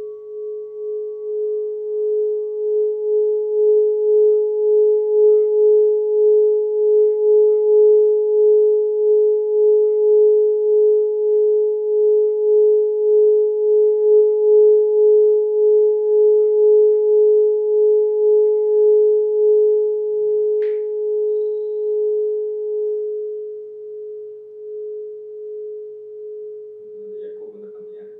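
Brass singing bowl, held on the palm and rubbed around its rim with a padded mallet, singing one steady tone with a fainter higher overtone. The tone swells over the first few seconds, wavers gently throughout, and fades away after about twenty seconds as the rubbing stops and the bowl rings out.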